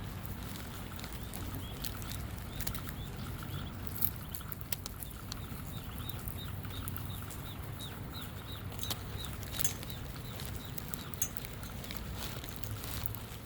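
Ducklings peeping: a steady run of short, high calls, a few a second, over rain pattering with scattered sharp drop clicks.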